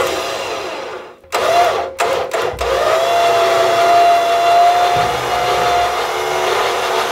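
Truck-mounted electric winch motor running under load, dragging a shed on its skids. It starts and stops in a few short bursts, then from about two and a half seconds in runs steadily with a high whine.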